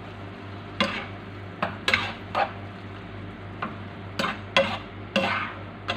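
Metal spoon stirring sugar into a boiling sweet and sour sauce in a nonstick frying pan, with about ten irregular scrapes and knocks against the pan. A steady low hum runs underneath.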